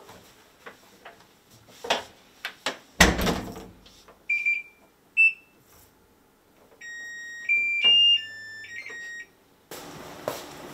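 Top-loading washing machine being loaded: a few knocks and one loud thump as the laundry goes in, then two short button beeps from the control panel, and the machine's short electronic start-up tune of several tones.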